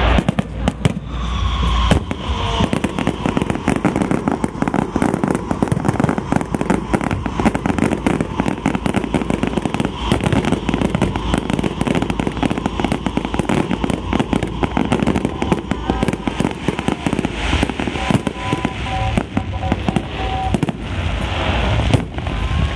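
A dense, unbroken barrage of firecrackers and fireworks going off in rapid crackling succession, with a few short whistles among the bangs.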